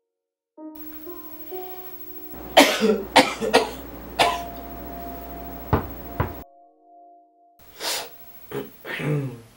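Soft instrumental music with sustained notes, broken by a person coughing: a fit of several harsh coughs starting about two and a half seconds in, and another bout near the end. The sound drops out briefly in between.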